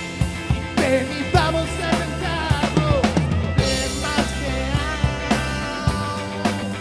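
Indie rock band playing live: drum kit with bass drum and snare keeping a steady beat under electric bass and electric guitars. A melody line bends and slides in pitch in the first half.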